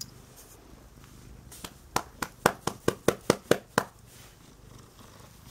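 A tabby cat purring faintly and low. About a second and a half in, a quick run of about ten sharp hand slaps comes at roughly four a second and lasts a little over two seconds.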